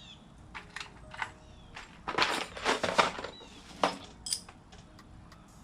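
Hands working a hose clamp onto a rubber fuel hose: irregular metallic clicks and short scraping, rustling bursts, busiest about two to three seconds in. Faint short chirps sound in the background.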